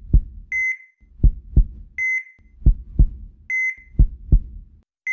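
Heartbeat sound effect: pairs of deep thumps, each pair followed by a short, high electronic beep. The cycle repeats about every one and a half seconds.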